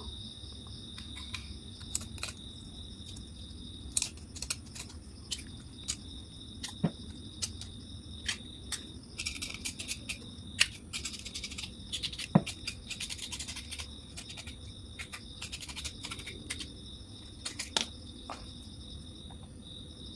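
Short scraping strokes and small clicks as the enamel is scraped off the copper winding wire of a motorcycle stator, baring it for a joint. Crickets chirr steadily underneath.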